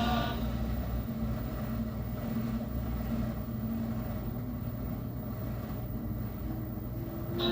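LG commercial washing machine running with a steady low rumble and hum.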